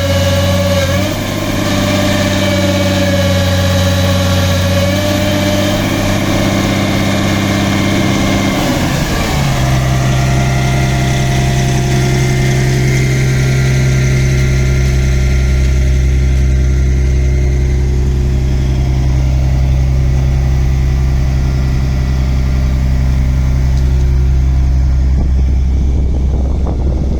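Cat 345C hydraulic excavator's diesel engine running at raised speed with a steady high whine, then about nine seconds in dropping to a lower, steady idle.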